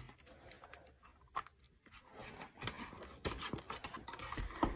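Pages of a picture book being turned and handled: soft paper rustling with a few light clicks and taps scattered through it.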